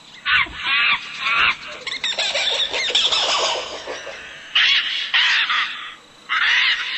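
Loud bird calls in several bursts, with short pauses between them.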